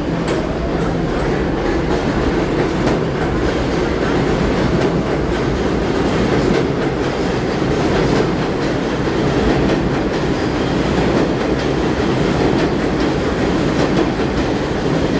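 R62 subway cars of a 3 train leaving the station and picking up speed: a steady loud rumble of steel wheels on rail, with repeated clicks as the wheels cross rail joints.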